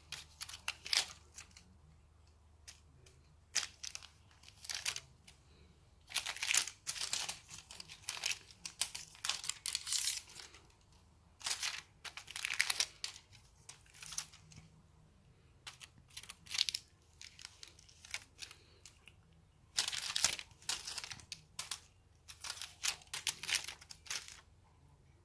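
The crinkly plastic film of a kashakasha cat wand toy rustles in irregular bursts of crackling as a cat bats and bites at it, with short pauses between the bursts.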